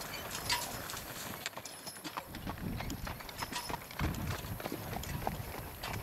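Hooves of several horses clip-clopping on a gravel road as riders and horse-drawn wagons pass, the hoofbeats irregular and overlapping over a low rumble.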